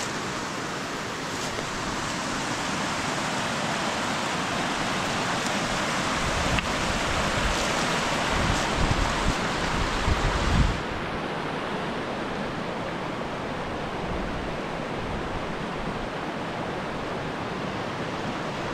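Steady rushing of a small waterfall on a river. A few seconds in, low rumbling buffets the microphone for several seconds. Just past halfway it stops, and the rush turns duller.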